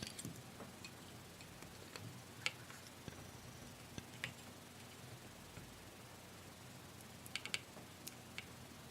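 Scattered small clicks and taps of hand tools and solder against a circuit board on a workbench during soldering rework, over a faint steady low hum. The sharpest tap is about two and a half seconds in, with a quick run of clicks near the end.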